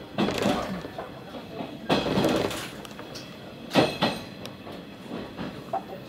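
The Rokumon sightseeing train, a converted 115-series electric multiple unit, rolling through a station yard, heard from inside the carriage: a steady rumble with wheels clattering over rail joints and points, in three louder bursts, about a second apart then more, the sharpest near four seconds in.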